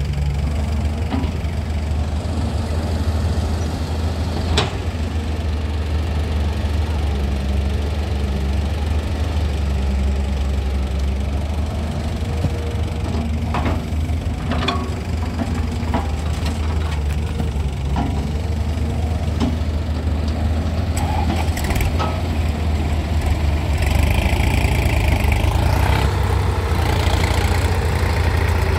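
Diesel engines of a farm tractor and a crawler excavator running steadily, with a few sharp knocks as bucketloads of soil drop into the tractor's trolley. Near the end the tractor engine speeds up as it pulls the loaded trolley away.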